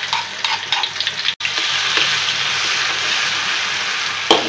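Pounded garlic and green chili paste sizzling steadily in hot oil in a wok, with a spatula scraping and tapping the pan in the first second. The sound cuts out for an instant about a second and a half in, and there is a sharp knock near the end.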